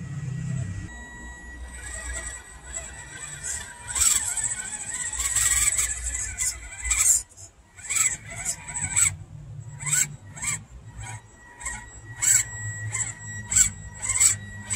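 Electric motor and gear drive of a small RGT RC crawler truck whining in repeated short bursts as the throttle is pulsed on a steep dirt climb, over a faint steady high whine.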